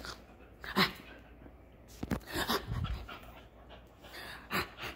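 Dog panting in a few short, irregular bursts of breath with a rubber ball toy in its mouth.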